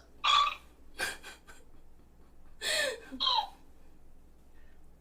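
A young woman making four short non-speech throat-and-breath sounds, two in the first second and two more about three seconds in, the later ones falling in pitch.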